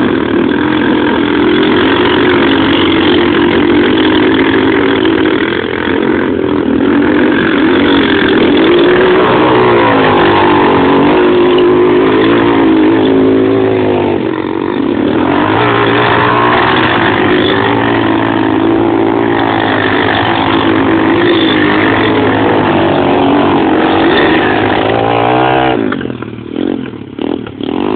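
Quad bike engine running loud and close, its pitch rising and falling as the throttle is opened and closed. Near the end the sound breaks up in several short gaps.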